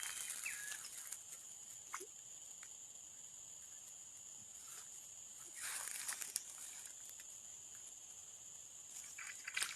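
Insects droning steadily at a high pitch, with a few faint clicks and a brief rustle about six seconds in.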